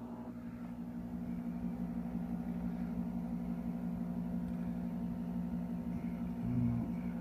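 Large vertical window air conditioner running, a steady hum with the rush of its fan.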